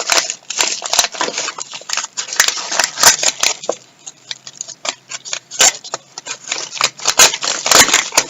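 Paper and cardboard packaging being handled and pulled open by hand: irregular rustling and crinkling with many small sharp clicks.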